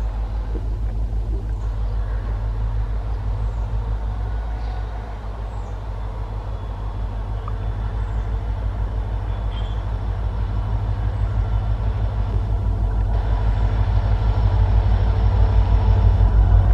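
WDG4D diesel locomotive's two-stroke V16 engine running with a low, pulsing throb, growing louder over the second half as the locomotive draws close.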